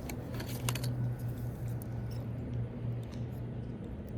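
Small clicks and rustles of fishing tackle being handled while a lure is tied onto the line, a few clicks close together in the first second, over a steady low hum.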